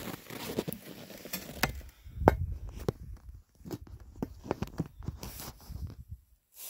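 Footsteps crunching in packed snow, a string of short, uneven crunches.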